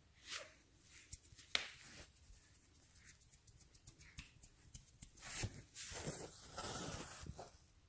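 Soft rustling and light clicks of a hand and fabric moving over a blanket, busier and louder for a couple of seconds past the middle.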